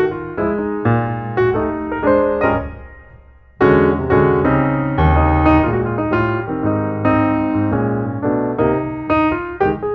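Solo piano music: chords and melody notes struck and left to ring. The playing dies away around three seconds in, then starts up again loudly half a second later.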